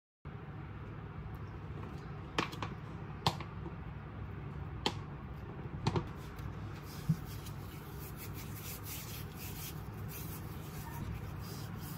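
Close handling sounds over a low steady room hum: a handful of sharp light taps and clicks in the first half, then soft continuous rubbing and rustling.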